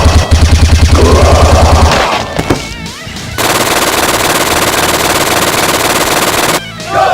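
Rapid automatic-gunfire sound effect, about ten shots a second, that stops about two seconds in and gives way to a steady noisy background.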